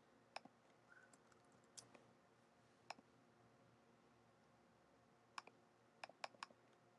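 Faint, sharp computer mouse and keyboard clicks against a quiet room: single clicks spaced a second or more apart, then a quick cluster near the end.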